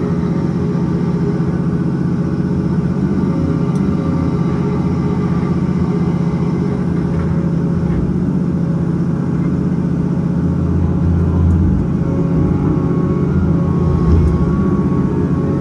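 Caterpillar 568 log loader's diesel engine and hydraulics running steadily under load as the boom lowers a log trailer to the ground. The engine swells briefly about eleven seconds in, and there is a short bump near the end as the grapple opens.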